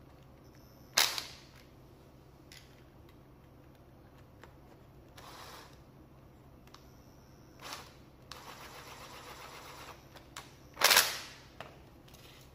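Makita TD110D 12 V cordless impact driver backing screws out of a power head's housing: two loud, short, sharp bursts, one about a second in and one near the end, with about two seconds of rapid rattling hammering in between and a few small clicks of handling.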